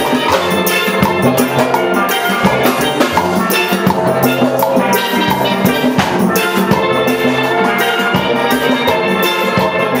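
Steel band playing: steel pans ringing out melody and chords over drums.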